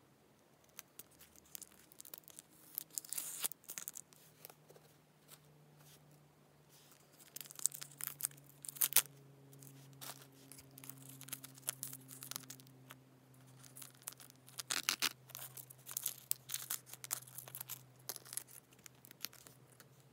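Small clear plastic jewellery bag and card packaging handled and opened, crinkling and rustling in several irregular bursts, loudest about nine seconds in.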